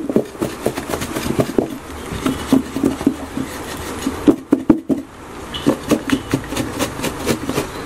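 Plantain pieces and breadcrumbs being shaken in a lidded plastic food container: quick, irregular thuds and rattles as the pieces tumble against the sides. This is the breading step, coating the plantains in crumbs, with a short break about five seconds in.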